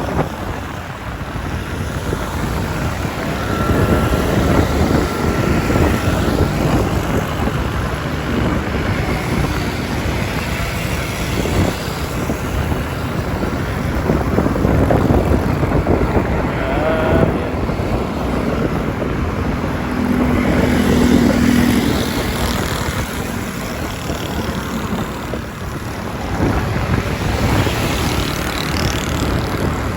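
Motorcycle riding through city traffic: steady engine and road noise with other vehicles passing.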